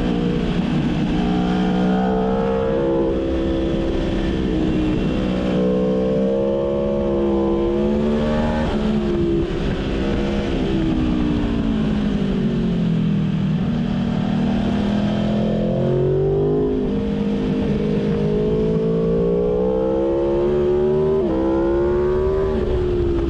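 Aprilia Tuono motorcycle engine heard from the rider's seat, its pitch climbing under throttle and sinking as it backs off through the bends. Its pitch drops abruptly a few times, over a steady rush of wind.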